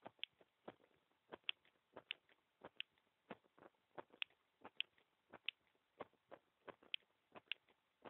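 Heartbeat picked up by a microphone resting on the bare chest: faint, sharp double clicks repeating about one and a half times a second.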